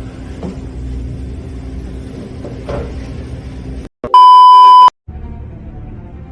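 A low rumble cuts out suddenly about four seconds in and a loud, steady bleep tone sounds for under a second, with a brief silence on either side; the low rumble then returns more faintly.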